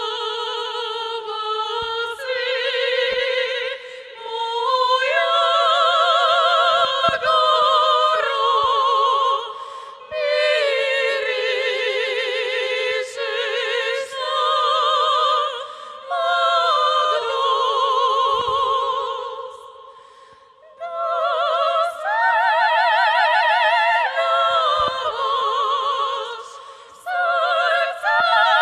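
Three female soprano voices singing together in operatic style, in close harmony with wide vibrato, in long held phrases broken by short pauses. No instruments are heard under them.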